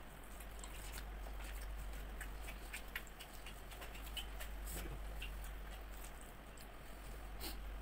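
Eating by hand from a banana leaf: soft, scattered clicks and crackles from fingers working rice and crispy fried pieces and from chewing, over a steady low hum.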